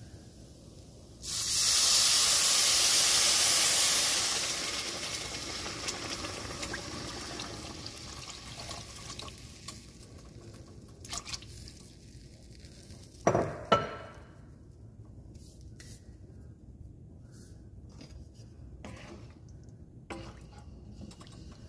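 Chicken broth poured into a hot oiled pan of toasted rice and onions: a sudden loud hiss and sizzle about a second in, fading over several seconds as the liquid cools the pan. Later come a couple of short knocks and light stirring.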